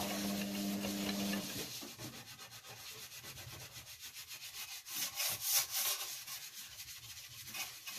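A kitchen sponge scrubbing the floor of an oven, rubbing off grease and grime loosened by oven cleaner, in quick repeated strokes that grow louder around the middle. A low steady hum stops about a second and a half in.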